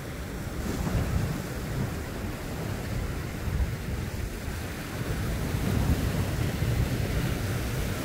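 Sea waves washing onto a rocky shore, with wind gusting on the microphone as a low rumble.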